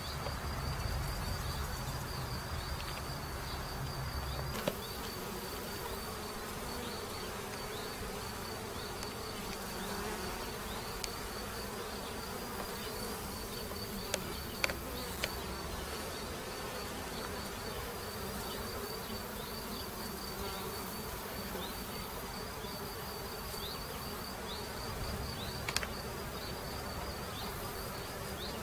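Honeybees buzzing at the entrance of a Warré hive: a steady hum of many bees flying in and out, with a steady high pulsing tone above it and a few faint sharp clicks.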